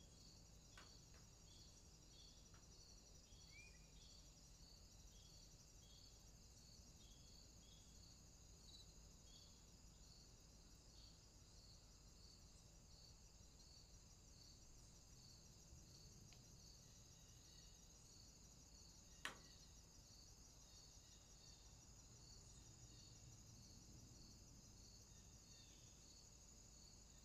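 Near silence, with faint high insect chirping pulsing about twice a second and a single sharp click about two-thirds of the way through.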